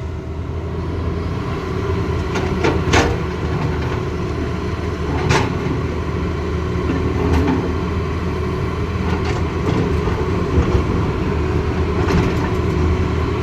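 Tata Hitachi Zaxis excavator's diesel engine running steadily under load while loading a dump truck. A few sharp knocks come over it, the clearest about three and five seconds in.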